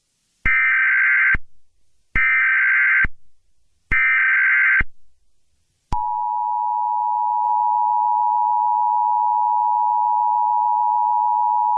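Emergency Alert System SAME header: three short bursts of shrill digital data tones, about 1.7 s apart, then a steady two-tone EAS attention signal starting about six seconds in.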